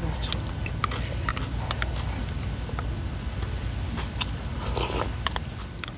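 Someone eating from a small plastic bowl with chopsticks: scattered light clicks of the chopsticks against the bowl, and chewing.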